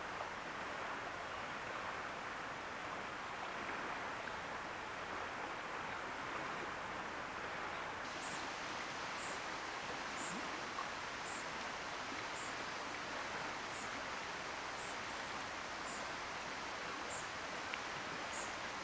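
River water flowing with a steady rush. From about halfway through, a short, very high chirp repeats about once a second, ten times in all.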